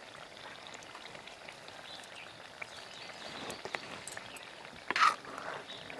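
Urad-dal kadhi simmering, with small irregular splashes and patters as pieces of fried vada are dropped into it. One louder knock or splash about five seconds in.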